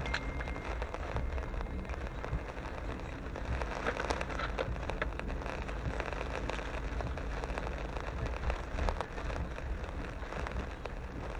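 Rain striking a car's windshield and roof, heard from inside the cabin, as a dense steady hiss flecked with fine drop ticks. Under it run tyre noise on the wet road and a steady low hum from the moving car.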